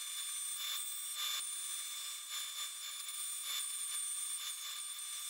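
Bandsaw running and cutting a curved blank out of thick wood stock: a thin, steady, high-pitched whine with no low end.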